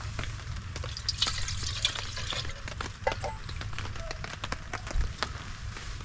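Rain dripping and pattering on a tarp: irregular, scattered taps.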